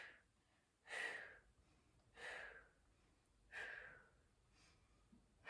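A woman's short, sharp exhales through the mouth, about one every 1.3 seconds, as she breathes out in little puffs while holding a side plank.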